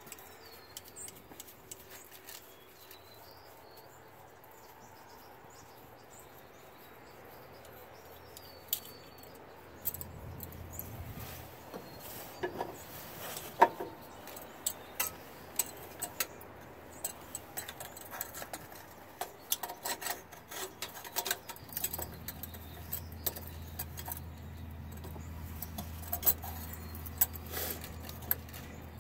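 Scattered metallic clicks and clinks of hands fitting the air-intake hose and elbow onto a diesel turbocharger, growing more frequent from about ten seconds in. A few bird chirps come in the first seconds.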